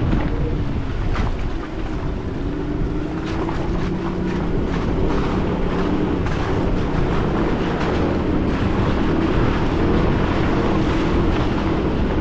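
Four-wheel drive's engine running steadily as it drives up a rough mountain track, its pitch drifting gently up and down. Scattered knocks come from the rocky ground, with wind on the microphone.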